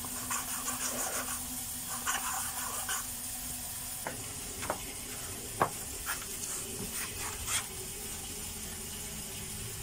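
Light rubbing and a handful of soft clicks from a small metal bushing of a pneumatic footbrake valve being handled and wiped with a rag, over a steady hiss.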